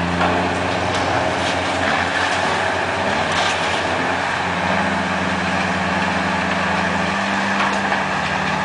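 Heavy tow truck's diesel engine running steadily. Its pitch steps up about halfway through and drops slightly near the end.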